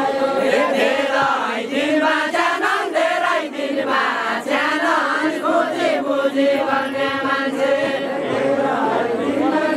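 A group singing a Nepali Deuda folk song together in a chant-like unison, with a woman singing into a microphone among them.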